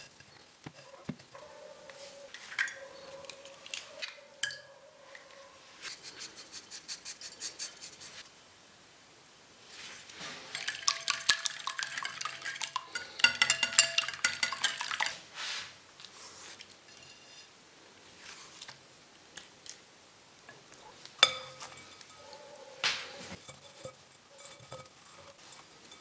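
Egg being beaten in a bowl: fast clinking of the utensil against the bowl, loudest in a run of several seconds midway. Softer handling noises around it, with one sharp knock near the end.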